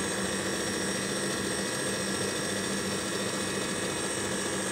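Air conditioner running, very loud: a steady hum with several held tones over an even rushing noise.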